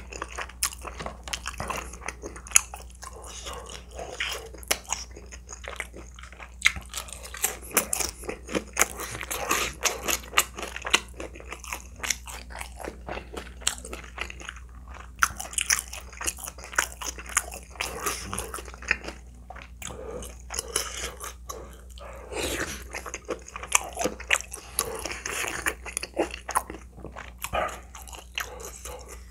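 Close-miked chewing of crispy pepper-coated roast chicken and spicy tteokbokki: irregular crunching with many sharp mouth clicks.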